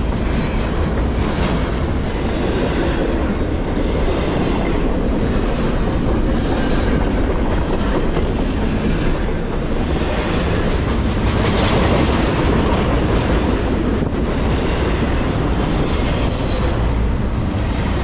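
Double-stack container well cars rolling past close by, a steady loud rumble of wheels on rail with rhythmic clicking over the rail joints. A brief faint wheel squeal rises about halfway through.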